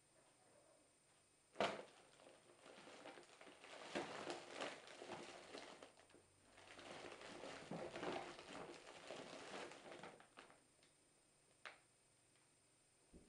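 Cats wrestling in a cloth tote bag used for waste paper, the bag crinkling and rustling in two spells of several seconds each. A sharp knock comes just before the first spell, and a fainter click near the end.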